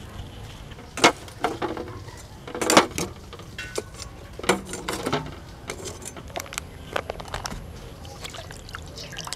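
A few scattered clinks and knocks of cooking gear being handled, over a low steady background.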